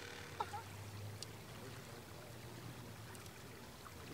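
Faint lakeshore ambience: a steady low hum under a light wash of water or wind noise, with a couple of brief faint chirps about half a second in.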